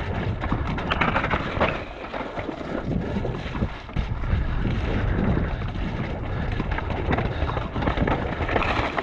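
Mountain bike riding fast down a dirt forest trail: wind buffeting the microphone over the rush of tyres on dirt, with frequent small knocks and rattles from the bike over the bumpy ground.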